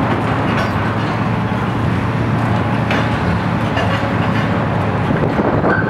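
Komatsu PC 800-8 high-reach demolition excavator's diesel engine running steadily under load, with a few faint knocks from the demolition tool working the concrete.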